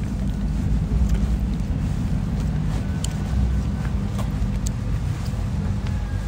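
Steady low rumble of cars moving and idling in a parking lot, with a few faint ticks.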